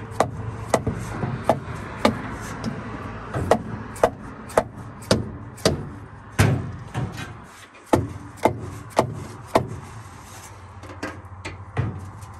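A mallet striking the cast-iron cylinder head of a 1939 Ford flathead V8 repeatedly, tapping it down over the head studs onto a new head gasket. The knocks come about two a second, with a short pause near the end.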